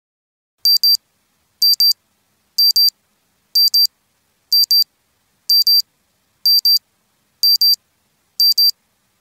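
Timer alarm going off as the countdown runs out: a high-pitched electronic double beep repeated about once a second, starting just under a second in.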